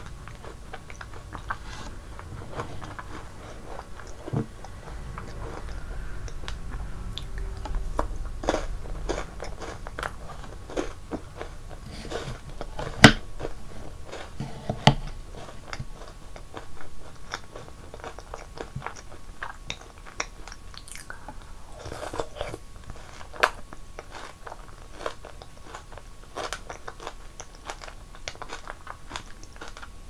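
Close-miked eating sounds of a bowl of strawberry ice cream and snacks in milk: chewing and crunching, broken by frequent short sharp clicks, the loudest about 13 seconds in.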